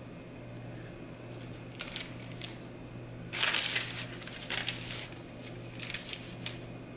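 Baking parchment rustling and crinkling in several short bursts as sheets of puff pastry are lifted and laid onto a parchment-lined baking tray, the loudest about three and a half seconds in. A low steady hum runs underneath.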